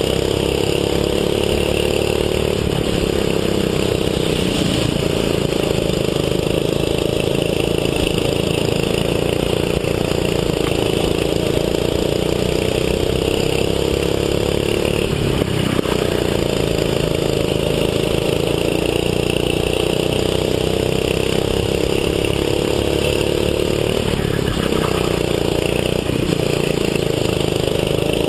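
Go-kart engine at high revs, heard close up from the kart itself. Its pitch climbs slowly for several seconds at a time and drops sharply three times as the kart slows for corners, then climbs again.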